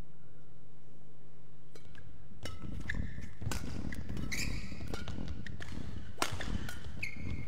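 Badminton rally on an indoor court, starting about two and a half seconds in after a low steady hum: several sharp racket strikes on the shuttlecock mixed with the high squeaks of players' shoes on the court floor.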